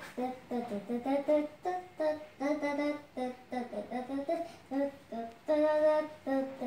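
A child humming a wordless tune in short, stepped notes, vocalising the music for his own Khon dance.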